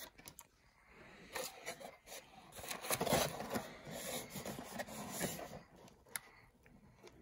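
Paper and cardboard rustling and crinkling as takeout boxes are opened and their paper liners lifted, with a few sharp clicks of the box flaps.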